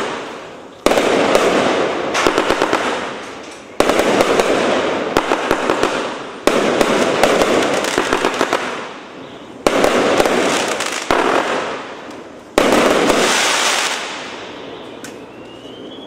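A 100-shot, 1-inch consumer fireworks cake firing. Five loud bursts come about three seconds apart, each followed by a dense crackle that dies down. The display fades out in the last couple of seconds.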